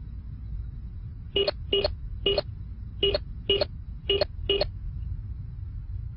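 Electronic keypad beeps as a code is keyed in: seven short beeps between about one and a half and five seconds in, over a steady low rumble.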